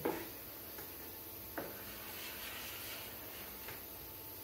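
Faint rubbing of a hand glue spreader working veneer glue across a wooden door panel, with a single light click about one and a half seconds in.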